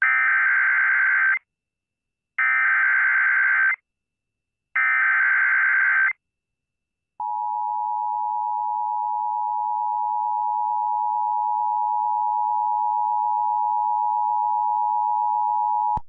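Emergency Alert System header: three bursts of SAME digital data tones, each about a second and a half long, then the steady two-tone EAS attention signal, about nine seconds long. It is sent by WBAP AM to open a severe thunderstorm warning activation.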